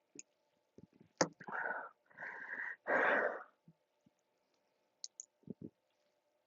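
A person breathing out hard three times in quick succession, gasping for breath between gulps of soda, after a sharp click about a second in; a few soft low thumps follow near the end.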